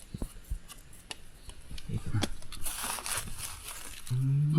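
Rustling and crackling of dry leaf litter with scattered sharp clicks, from handling on the forest floor while wild mushrooms are picked. A man's voice comes in near the end.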